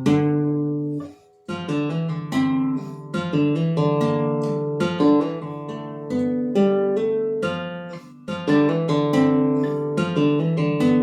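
Solo acoustic guitar playing a piece of plucked notes and chords, with a brief break about a second in before the playing resumes.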